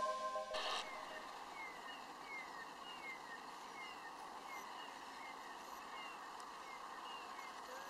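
Background music fading out at the start, then faint bird calls: short descending notes repeated about twice a second over a soft steady hiss.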